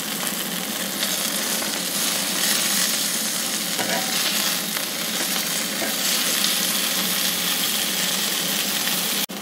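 Chicken breast cutlets sizzling steadily in hot oil in a Finex cast-iron skillet while tongs turn them over. The sizzle swells slightly about a second in.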